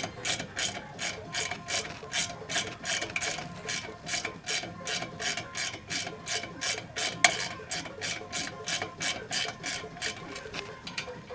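Socket ratchet wrench clicking steadily, about four clicks a second, as exhaust bolts are being undone, with one louder click about seven seconds in.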